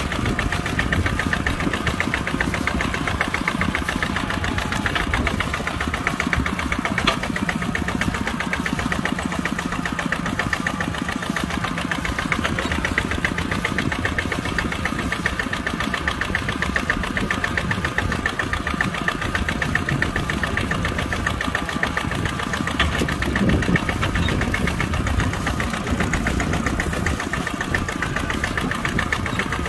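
Kubota tractor's diesel engine running steadily at a constant speed.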